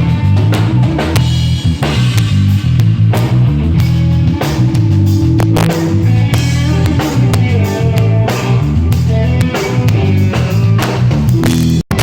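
Rock drum kit played along to a song, bass drum, snare and rimshots over a steady low bass line. The sound cuts out for an instant near the end.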